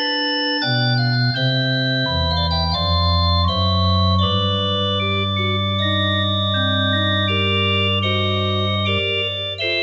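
Organ music: slow sustained chords over a long-held bass note, changing about once a second.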